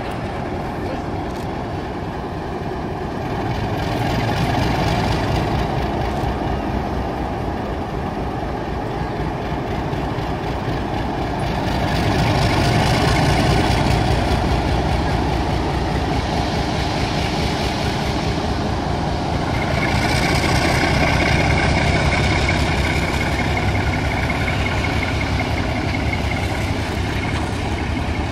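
Alco-engined 44 class diesel-electric locomotive 4490 running under power as it slowly hauls a heritage passenger train past. The engine note swells several times as the train gets moving, and the passing carriages rumble along with it.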